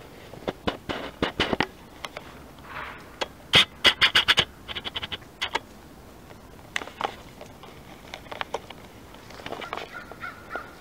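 Crackling and rustling of dry leaves and twigs underfoot in brush, with a loud burst of sharp snaps about three and a half seconds in.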